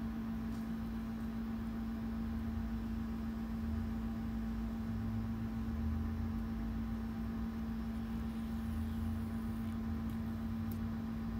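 A steady low hum holding one constant tone, over an even background of room noise.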